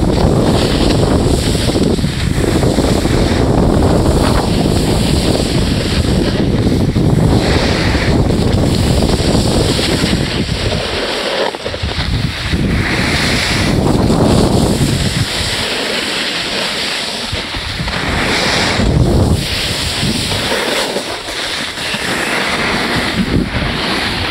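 Wind buffeting the camera's microphone while sliding down a ski slope, with the hiss of the snow under the board or skis swelling and fading. The low rumble is heaviest for the first half and eases after that.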